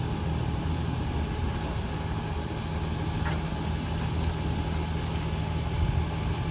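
An engine idling steadily, a low even hum with no revving or sudden noises.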